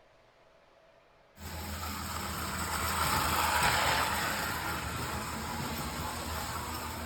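O gauge electric model train running, a steady mechanical hum and hiss that starts abruptly about a second and a half in, swells slightly and then holds steady.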